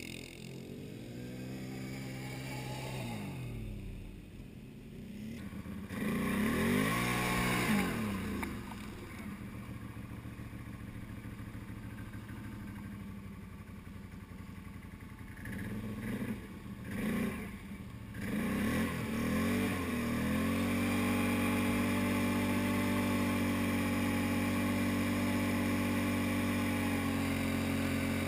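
Single-cylinder ATV engines revving, their pitch rising and falling as the quads ride through mud. From about twenty seconds in, one engine is held steady at high revs while the quad churns through deep mud.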